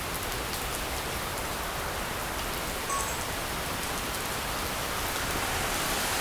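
Hard rain falling steadily, with scattered close drips ticking. There is a brief faint electronic-sounding chirp about three seconds in.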